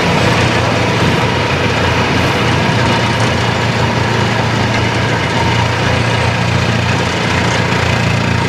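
Excavator-mounted telescopic vibratory hammer running, the excavator's diesel engine and the hammer's vibration making a loud, steady, even drone with no break.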